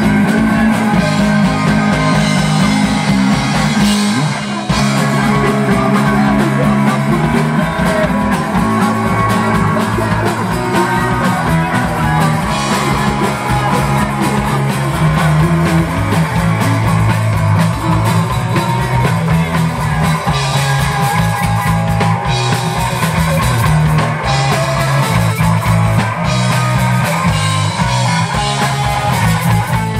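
Live rock band playing loud: distorted electric guitar, bass guitar and drum kit together, a steady driving beat under moving bass notes.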